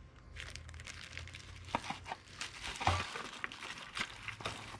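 Thin clear plastic bag crinkling in the hands as a diecast toy truck is handled in it, with a foam packing sheet rustling as it is lifted out of the box. Irregular crackles and rustles throughout, with a few sharper crackles about two and three seconds in.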